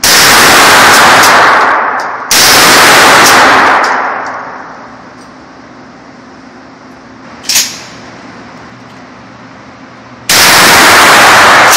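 Three blasts from a Mossberg Maverick 88 pump-action shotgun with an 18.5-inch barrel firing 2¾-inch slugs: one at the start, a second about two seconds later and a third near the end, each loud enough to overload the recording and dying away over a second or two. A short sharp knock falls between the second and third.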